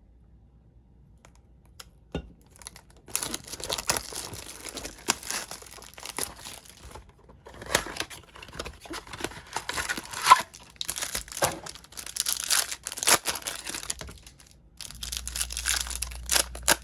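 Foil wrappers of Topps 2020 Series 2 baseball card packs being torn open and crinkled by hand, in several spells of crackling with short pauses between them, starting a few seconds in.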